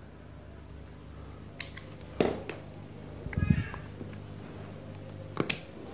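USB active speaker's amplifier humming steadily, with a few sharp clicks and knocks as its control panel and plugged-in jack cables are handled, and a short pitched cry a little past halfway.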